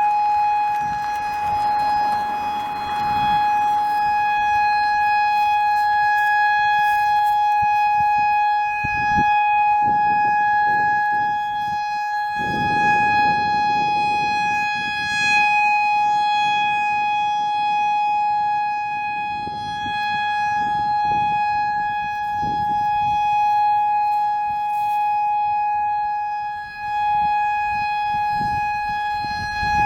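Federal Signal EOWS 612 electronic outdoor warning siren sounding a steady, single-pitch tone for a tornado drill test. The level sways slightly, with a brief dip near the end.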